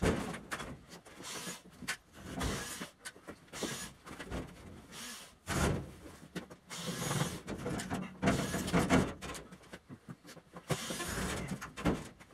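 Tall steel cabinet being shifted along the floor: it scrapes and grinds in irregular bursts, with repeated knocks.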